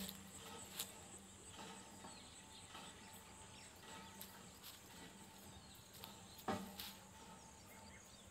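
Quiet outdoor background with faint bird chirps, broken by two sharp clicks: a small one under a second in and a louder one about six and a half seconds in.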